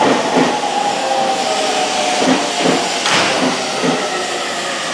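Tokyo Metro 05 series subway train running into a station and slowing. A steady motor whine drifts slowly down in pitch, with several knocks from the wheels and a short hiss of air about three seconds in.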